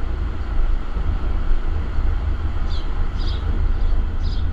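Wind buffeting the microphone: a steady low rumble with hiss, rising and falling in level. A few faint high chirps come in the second half.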